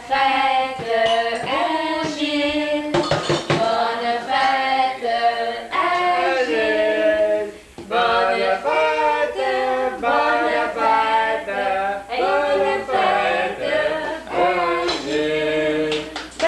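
A group of people singing a birthday song together in unison, with a brief pause about eight seconds in.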